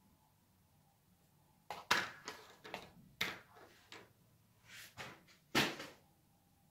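A spiral paper notepad being pawed and dragged across a wooden tabletop by a cat, then pulled off the edge: a run of short paper rustles and scrapes starting about two seconds in, with one of the two loudest near the end.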